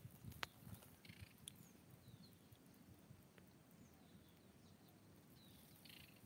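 Near silence: faint outdoor ambience with a few soft clicks and some faint, short high chirps.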